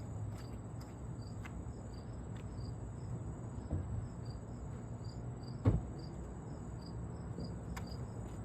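Crickets chirping steadily, about three chirps a second, with a single sharp thump a little over halfway through and a few faint clicks.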